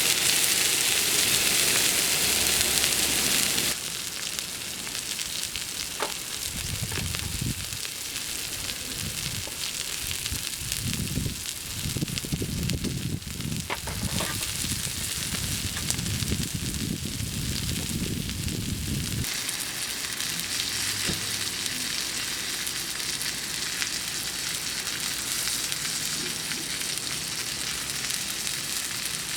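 Sirloin steak sizzling as it cooks over a campfire, a steady frying hiss that is loudest for the first few seconds and then drops a little. A low rumble runs beneath it through the middle, and there are a couple of small pops.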